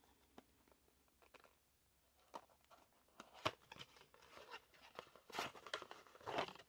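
Small cardboard product box being opened by hand: the flap is pulled open and a folded paper insert is slid out, giving faint scattered crackles and rustles of card and paper that get busier and louder in the second half.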